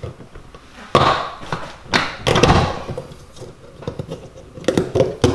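Plastic push-pin fasteners being pulled by hand from under a 2015 Mustang's rocker panel: several sharp plastic pops and rattles about a second apart, with a longer scraping clatter around two and a half seconds in.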